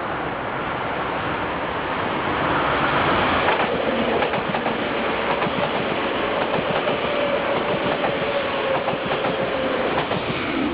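Electric commuter train passing close at speed: the rush of the train builds as it approaches, then its wheels clatter over the rail joints as the cars go by. A faint whine slowly drops in pitch as it passes.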